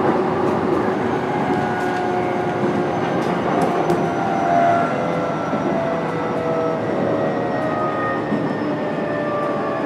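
Onboard running sound of a JR East E129-series electric train, motor car KuMoHa E129-23: the whine of its Toyo VVVF inverter and traction motors over steady wheel-and-rail noise, several tones falling slowly in pitch.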